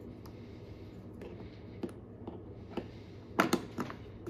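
Plastic clicks and knocks as a 12-volt plug is handled and pushed into the socket of a battery box: a few scattered clicks, then the loudest, a quick double knock, about three and a half seconds in.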